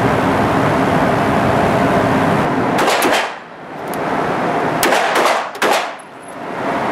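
A steady rushing noise, then about three seconds in handgun shots begin in an indoor firing range: several sharp shots in small groups, each followed by a short echoing ring-out.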